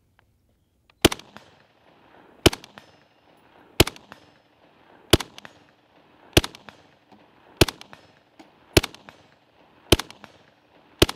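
Steyr AUG 5.56mm rifle fired in slow semi-automatic fire: nine single shots, about one every second and a quarter.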